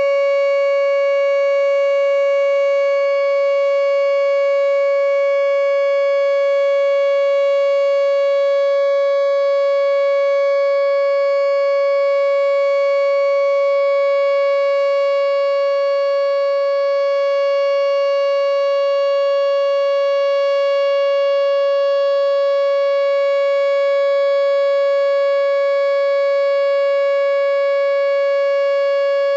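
Whelen WPS 2910 electronic outdoor warning siren sounding its full-alert signal: one loud, steady, held tone with a stack of overtones, with no rise or fall in pitch.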